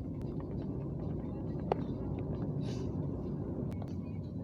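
Steady low rumble of a moving passenger train heard from inside a carriage, with scattered small clicks and knocks, one sharp click a little under two seconds in, and a brief hiss near three seconds in.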